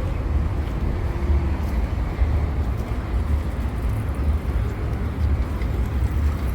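Outdoor ambient noise with a heavy, fluctuating low rumble.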